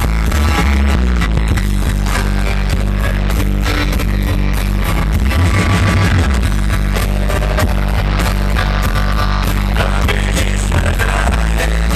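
Live rock music from a band played loud through a concert sound system, heavy in the bass.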